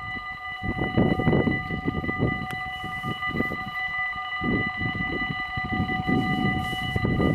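Level-crossing warning bells of a Dutch automatic half-barrier crossing ringing steadily ahead of an approaching train, over an uneven low rumble.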